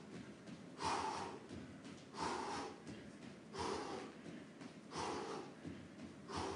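A man breathing out hard in a steady rhythm, five sharp exhalations about a second and a half apart, as he shadowboxes: the forced breath a boxer lets out with his punches.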